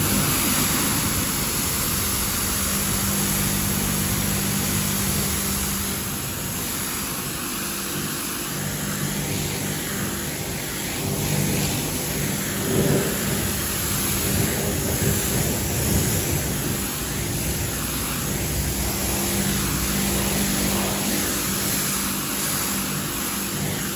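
AVA P80 electric pressure washer running, its motor and pump humming steadily under the hiss of the high-pressure water jet blasting mud off a tyre and wheel.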